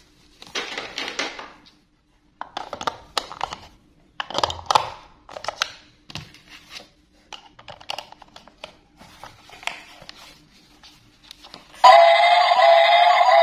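Plastic clicks and scrapes as AA batteries are pressed into a toy train's battery compartment and the compartment is handled. About twelve seconds in, the toy switches on and its small speaker starts playing a loud tune.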